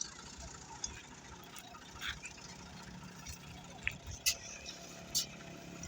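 An engine idling steadily at low pitch, with a few sharp clicks and knocks.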